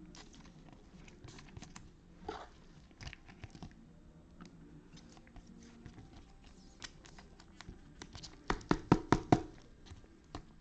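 Trading cards and pack wrappers being handled: light rustling, crinkling and small clicks as cards are slid and flipped, with a quick run of about six sharp taps near the end.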